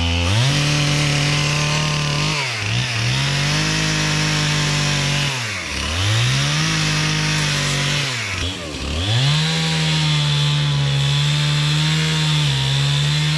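Two-stroke chainsaw running at full throttle, cutting through a fallen hemlock. The revs drop sharply and come back up three times.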